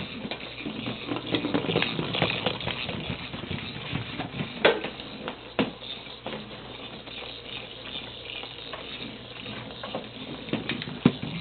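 Irregular patter and scrabbling of ferrets and a motorized toy ball moving on a tile floor, with a few sharper knocks, the loudest about halfway through and another near the end.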